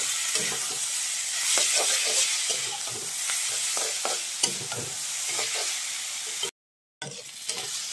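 Chowmein noodles with cabbage and onion sizzling in a hot kadai while a steel spatula stirs and tosses them, scraping and knocking against the pan. The sound cuts out for about half a second near the end.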